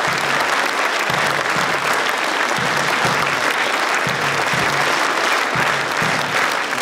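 Large theatre audience applauding steadily.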